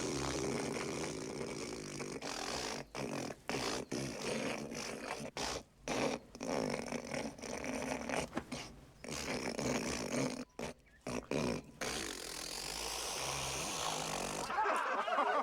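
A man hawking up phlegm from the back of his throat in long, rasping, gurgling pulls broken by many short pauses, working up mucus to spit as a show of affection.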